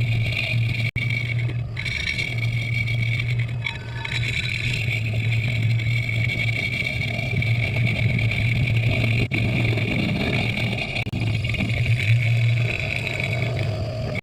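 Atlas milling machine running and cutting a hole in a metal door-handle bracket: a steady motor hum under a constant high whine and the grinding of the cutter in the metal.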